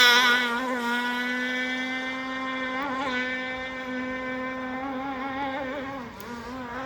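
RC hydroplane boat's engine running at high revs out on the water: a steady, high-pitched whine whose pitch wavers slightly now and then. It fades over the first second as the boat pulls away, then holds at a steady level.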